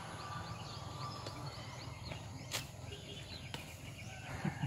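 Outdoor rural ambience with birds chirping in short repeated calls over a steady background hum, and one sharp click about two and a half seconds in.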